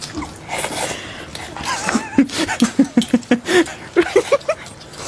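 A run of short giggles, about five a second, rising in pitch through the second half, over wet slurping and chewing of rice noodles.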